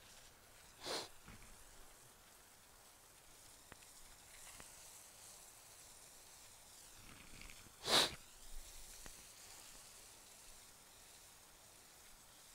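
Garden hose with a spray nozzle running, a faint steady hiss of water falling on the soil. Two short, louder bursts of noise come about a second in and again about eight seconds in.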